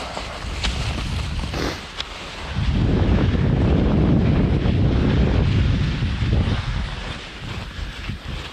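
Wind buffeting the microphone while the camera moves along a ski trail: a low rumble that swells about two and a half seconds in, holds for a few seconds, then eases. A few light clicks sound in the first two seconds.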